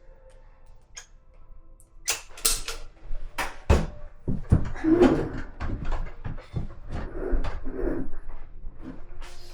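Wooden furniture panels knocking and scraping as a cupboard unit is pushed and slid into place: a few light clicks, then a run of sharp knocks with scraping from about two seconds in.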